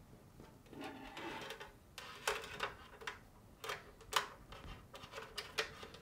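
Faint clicks, taps and a soft rustle of hands handling tape and wires on a plastic refrigerator dispenser shield.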